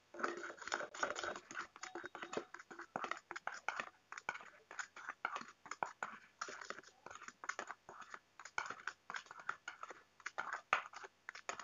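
Metal spoon stirring dry powdered sugar and baking soda in a small stainless steel bowl: a quick, uneven run of gritty scrapes and clinks against the bowl.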